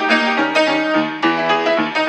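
Piano music playing a steady run of notes, about four a second, over sustained chords.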